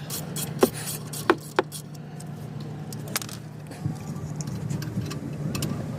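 Sharp metallic clicks and light scraping from brake pads and caliper parts being handled and fitted, a few separate knocks over a steady low hum.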